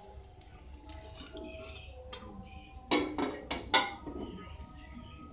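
A utensil knocking and clinking against a stainless steel soup pot, a few sharp knocks about three seconds in, the loudest just before four seconds.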